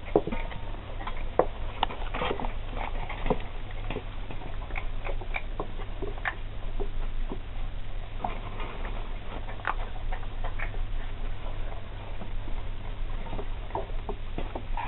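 Five-week-old Anglo Wulfdog puppies chewing raw chicken carcasses: irregular crunches and clicks of small bones, several a second, with no steady rhythm.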